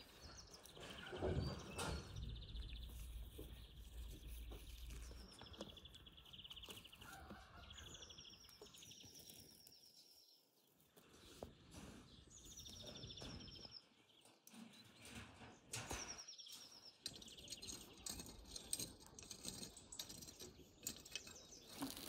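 Small songbirds singing faint, short trilled phrases that repeat every couple of seconds.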